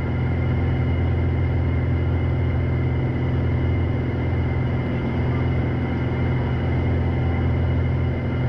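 Steady in-cabin drone of a Piper PA-46 Malibu's single piston engine and propeller in a climb. It is an even, unchanging hum with a strong low tone and a thin higher whine.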